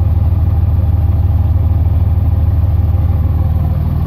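Dodge Ram's Cummins diesel engine idling loudly, a steady low rumble with a fast, even pulse.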